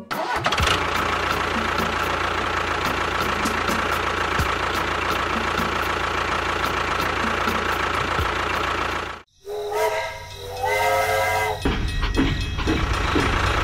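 A miniature tractor gives a steady mechanical running noise for about nine seconds, then cuts off abruptly. A toy steam locomotive's whistle follows in a few short toots, and then the train's running noise.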